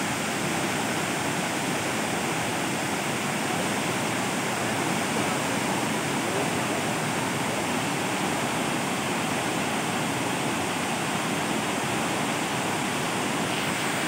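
Waterfall pouring over stepped rock ledges into a pool: a steady rush of falling water.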